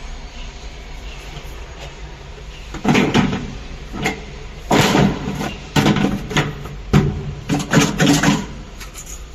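Work noises from fitting plumbing parts: about seven short scrapes and knocks starting about three seconds in, over a low steady hum.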